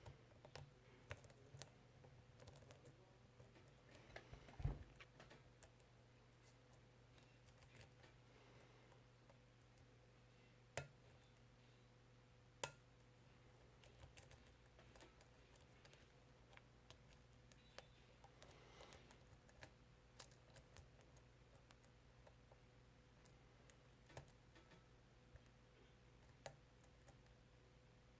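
Faint, irregular clicks and ticks of a lock pick and tension tool working the top pins of a Schlage Primus cylinder, with a few sharper clicks standing out, over a steady low hum.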